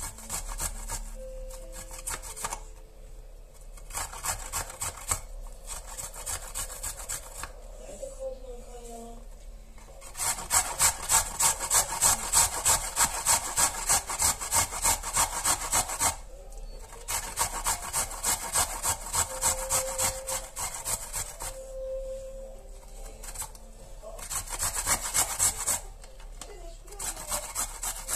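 Ginger root being grated by hand on a grater: rhythmic rasping strokes, about three to four a second, in runs broken by short pauses, loudest in the middle.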